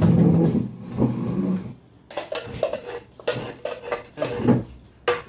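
Kitchen utensils knocking and scraping against a pot and dishes while gelatin is being made. A busy scrape fills the first second and a half, then about two seconds in comes a run of sharp clinks, some ringing briefly.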